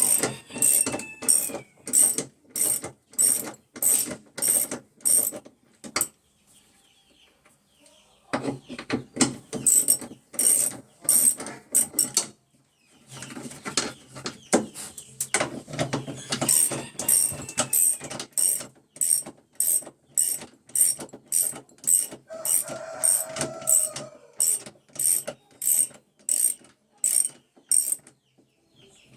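Electrolux LT15F top-load washing machine running with a noise that repeats about twice a second, a sharp ratcheting click each time. It stops for a couple of seconds about six seconds in and again briefly near twelve seconds in. This is the faulty noise the machine is making.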